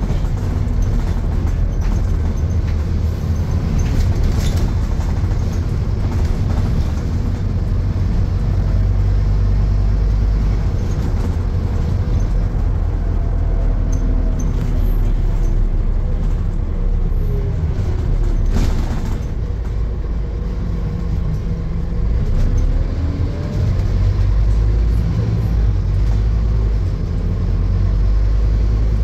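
Inside a moving Scania N230UD double-decker bus: its five-cylinder diesel runs with a deep, steady rumble, and its pitch rises and falls as the bus speeds up and slows. Two sharp knocks come about 4 and 19 seconds in.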